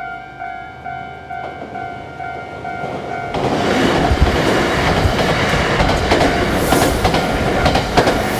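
Japanese level-crossing alarm ringing in a steady two-tone clang about twice a second. About three seconds in, a Nankai electric train reaches the crossing and passes, its wheels clattering over the rail joints and drowning out the bell.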